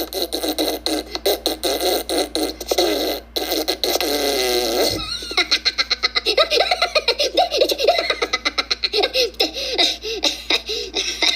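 Minions cartoon characters laughing and giggling in quick, high-pitched bursts, mixed with comic fart noises, including one longer drawn-out one that ends about five seconds in.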